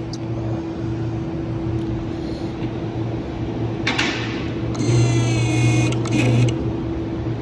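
Vehicle lift being lowered: a steady mechanical hum, with a click about four seconds in, then a hissing release lasting about a second and a half.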